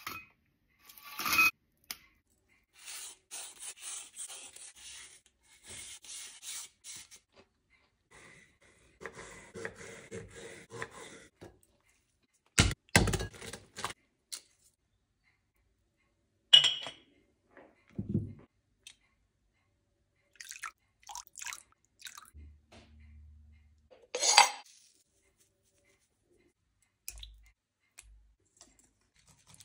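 Kitchen handling sounds on crockery. Tortilla chips clatter into a ceramic bowl. Light rustling and scraping follow, then two sharp knocks and small crackles as a boiled egg is cracked and peeled. Near the end a spoon clinks and scrapes against a ceramic bowl.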